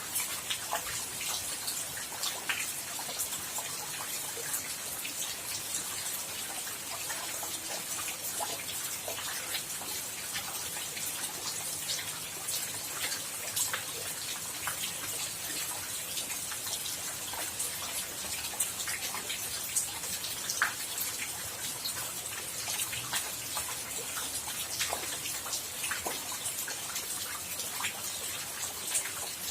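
Steady rain: an even hiss of falling rain with many individual drops striking close by as scattered sharp ticks, a few louder drips standing out now and then.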